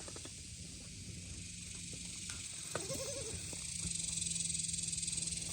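A baby goat bleats once, a short wavering call about three seconds in, over a steady high-pitched hiss and a low hum.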